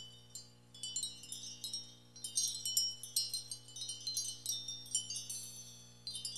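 High-pitched wind chimes tinkling in irregular clusters of short ringing notes, thicker from about two seconds in, over a faint steady low hum.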